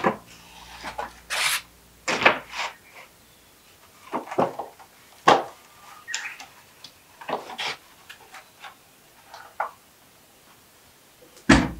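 Long wooden boards being shifted and pulled from a leaning stack: a series of hollow wooden knocks and clunks with scraping between them, and the loudest clunk near the end.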